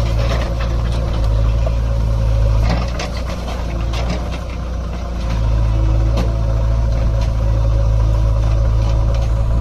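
JCB 3DX backhoe loader's diesel engine running under hydraulic load as it works the digging arm, its note easing for a couple of seconds in the middle. Sharp knocks and scrapes of the steel bucket in the soil come through over it.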